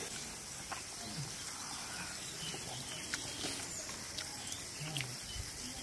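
Quiet outdoor ambience: a steady hiss with scattered soft clicks and a few faint short chirps.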